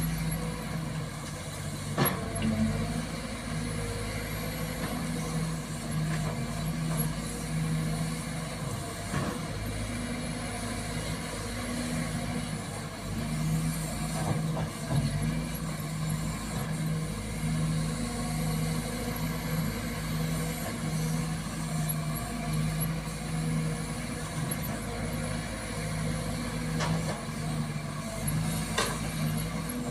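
Sumitomo hydraulic excavator's diesel engine running while it digs, with an evenly pulsing low engine note and a few sharp knocks.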